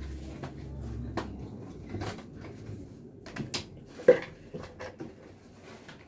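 Light clicks and knocks of a hand reaching into a plastic jar of animal biscuits at a table, with one sharp knock about four seconds in.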